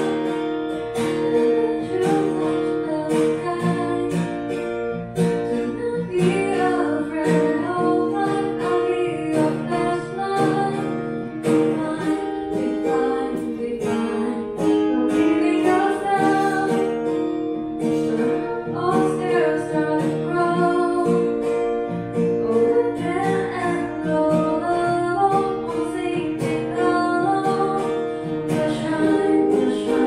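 Live acoustic guitar strummed as accompaniment to a woman singing into a microphone.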